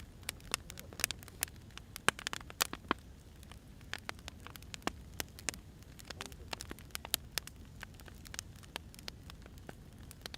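Wood fire crackling: irregular sharp pops and snaps from burning logs over a soft low rumble of the flames.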